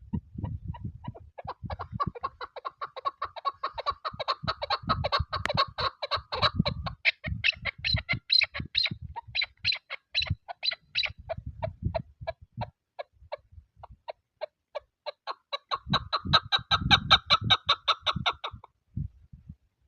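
Chukar partridge calling: a long, rapid run of clucking chuck notes, several a second, that thins out about two-thirds of the way through and swells again before stopping near the end. Wind buffets the microphone with low rumbling gusts underneath.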